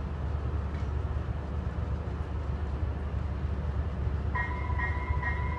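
Low, steady rumble of an Amtrak Cascades diesel passenger train pulling slowly out of the station. About four seconds in, a ringing bell tone starts.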